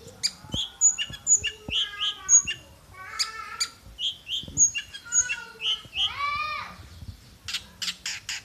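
A songbird singing a varied run of quick chirps, whistled slurs and falling notes, with a burst of fast clicking notes near the end.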